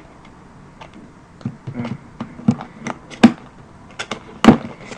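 Boxed puzzle-cube packaging being handled and opened by hand: irregular light clicks and knocks, the loudest two about three and four and a half seconds in.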